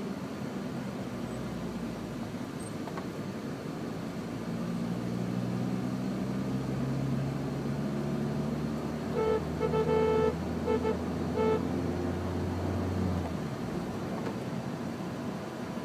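Car engine heard from inside the cabin, its pitch climbing steadily as the car accelerates, then dropping off near the end as the driver lifts off. About midway a car horn honks in a quick string of four or five toots.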